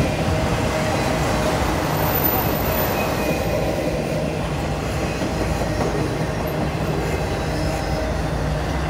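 Freight train of autorack cars rolling past at close range: a steady rumble of steel wheels on rail.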